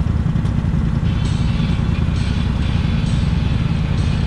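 Polaris Sportsman 850 ATV engine running steadily.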